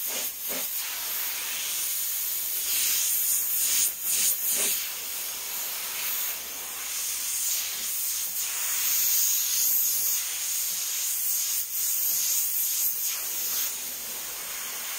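Airbrush hissing as it sprays paint onto a t-shirt in repeated strokes, the hiss swelling and easing with each pass.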